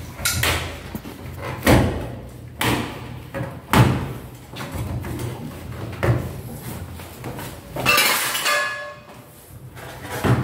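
Irregular knocks and thumps as hands press a flexible LED strip into an aluminium ceiling profile channel, with a longer scraping rustle about eight seconds in.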